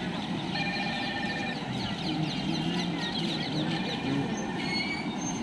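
Heavy flood water rushing steadily over a low-level bridge, with high chirping and whistling calls sounding over the rush.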